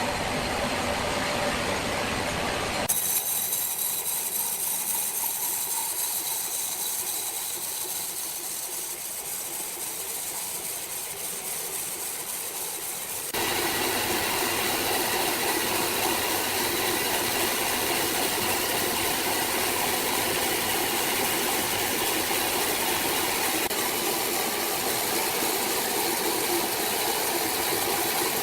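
Sawmill saw running steadily, a loud mechanical hiss and rattle that changes abruptly about three seconds in and again about thirteen seconds in.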